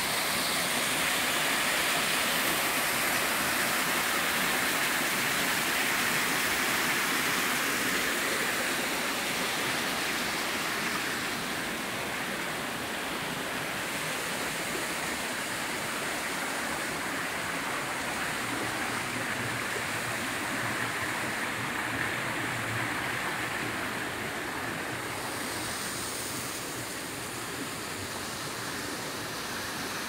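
Small waterfall splashing over rock ledges into a pool, a steady rush of falling water that eases a little after about ten seconds.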